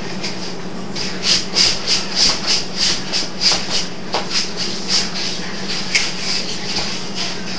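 Rhythmic rubbing or scraping strokes, about three a second, starting about a second in, over a steady low hum and hiss.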